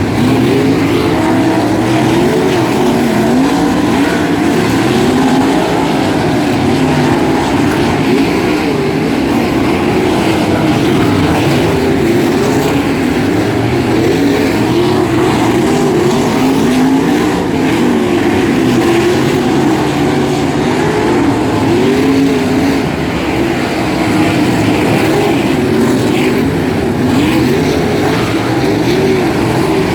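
A field of 360 winged sprint cars with methanol-burning V8 engines racing around a dirt oval. Several engines overlap, their pitch rising and falling without a break as the cars lift into the turns and accelerate down the straights.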